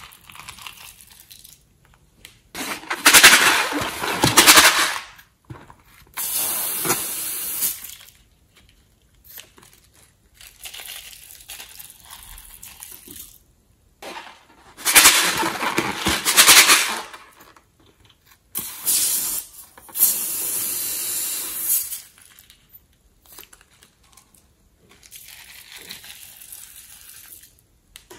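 Glitter and sequins poured and shaken from packets onto slime: a hissing, rustling patter in about six bursts of one to three seconds, the loudest about three seconds in and again about fifteen seconds in.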